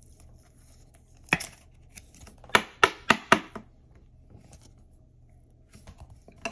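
Trading card being slid into a rigid plastic top loader and set on a clear acrylic stand. There is one sharp plastic click about a second in, then a quick run of five or six sharp clicks and scrapes around the three-second mark.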